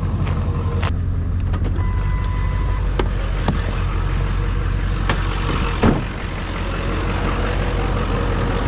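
Truck engine running steadily while the truck moves off, with scattered clicks and a single loud knock about six seconds in.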